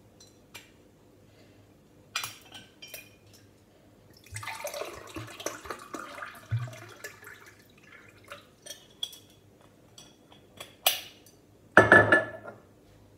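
Water poured from a glass swing-top bottle into a glass tumbler, splashing for about three seconds, with light clinks and clicks of glass being handled before and after. Near the end comes a louder, short clatter of glass on the countertop.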